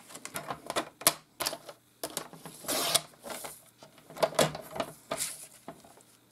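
Sliding-blade paper trimmer cutting designer paper: a run of clicks and taps as the paper and the trimmer's cutting head are handled, and a couple of short scraping swipes as the blade carriage runs along the rail through the paper.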